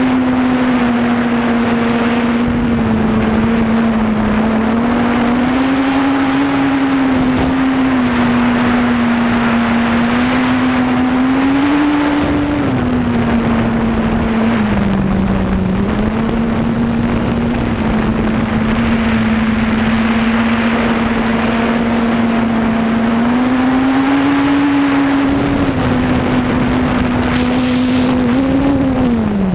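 Quadcopter's electric motors and propellers buzzing, heard from its own onboard camera, a steady drone whose pitch rises and falls a little as the throttle changes. Near the end the pitch drops sharply.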